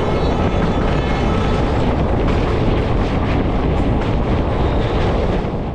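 Passenger train running at speed, heard from an open doorway: a loud, steady rumble and rushing noise from the wheels on the rails and the passing air. The sound drops off abruptly just before the end.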